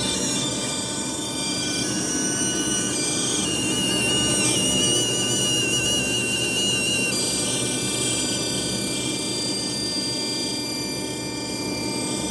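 CNC router spindle running with a 1/8-inch end bit cutting slowly: a steady high whine over a constant machine noise, with a wavering higher tone in the middle of the cut.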